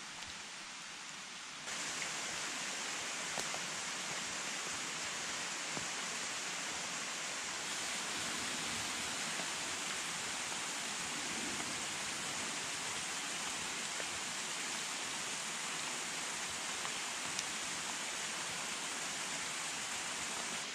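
Steady rushing of a mountain stream, louder from about two seconds in, while water is poured onto smouldering campfire embers to douse the fire.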